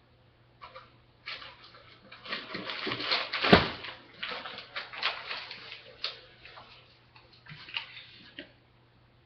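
Irregular rustling and clattering of things being handled, with one sharp knock about three and a half seconds in.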